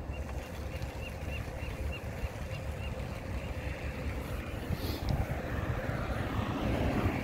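Wind buffeting the microphone of a moving bicycle, with the rumble of its tyres on the paved path and a light, even ticking about four times a second in the first couple of seconds. The noise swells louder near the end.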